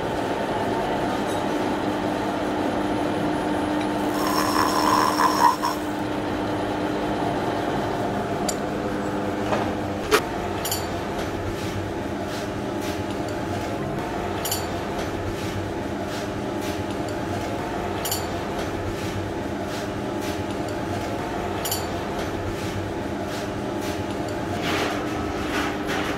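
Vertical milling machine running, its cutter milling the end of a white plastic rod, with a brief high squeal about four seconds in and a sharp click about ten seconds in. The machine's steady drone goes on after that, with a faint tick every three to four seconds.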